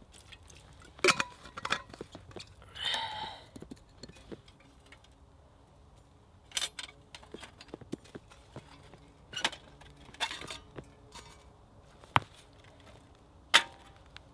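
Scattered metal clinks and knocks from a small folding steel firebox wood stove being handled and taken apart after it has been doused with water to cool it.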